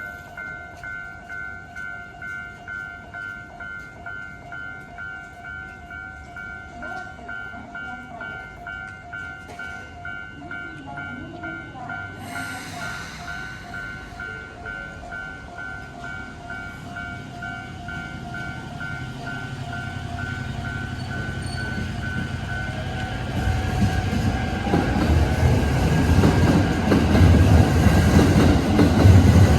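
Japanese level-crossing electronic warning bell ringing steadily at about two strokes a second. In the second half a train's rumble rises, grows loud and drowns out the bell near the end.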